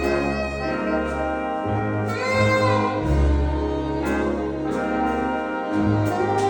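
Jazz ensemble playing held chords, saxophone and brass over a low bass line that drops out and comes back.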